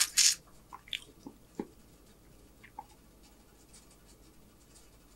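Close-miked chewing with the mouth closed: a brief loud mouth noise at the very start, then a few faint wet clicks and little else.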